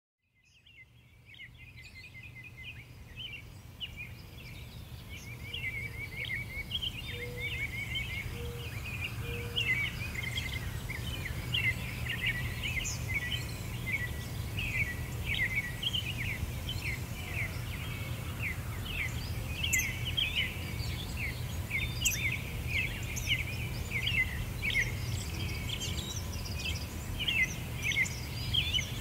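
A chorus of small birds chirping and twittering in quick, overlapping calls, fading in over the first few seconds and then carrying on steadily, over a steady low hum.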